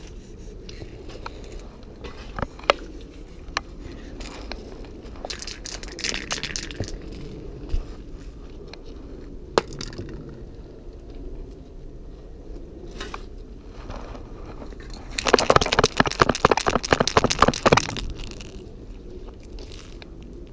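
Scattered clicks and knocks, a short hiss about six seconds in, and then about three seconds of loud, dense crunching on the gravel railway ballast.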